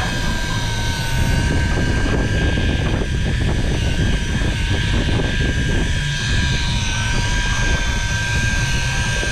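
A motor running steadily: a low rumble with two high, steady whining tones on top.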